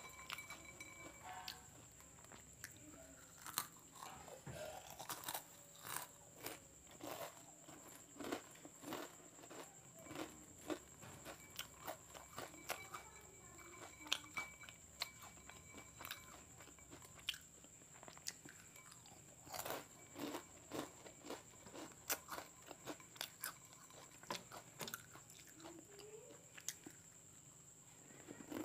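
Close-miked crunching and chewing of Kurkure corn snack sticks, many sharp crunches one after another, with fingers picking pieces out of a glass bowl.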